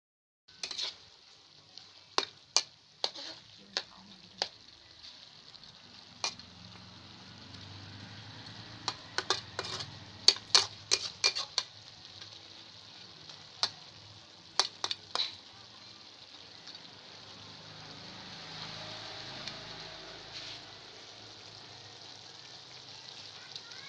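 Chicken in sauce sizzling in a metal wok as a spatula stirs it, starting about half a second in. Sharp clacks and scrapes of the spatula against the pan come in clusters, and for the last several seconds only the steady sizzle continues.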